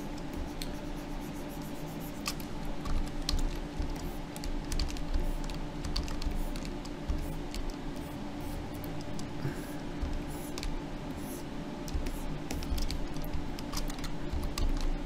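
Irregular clicks and taps of a computer keyboard and pointer device as a digital sculpt is worked on, over a steady low hum.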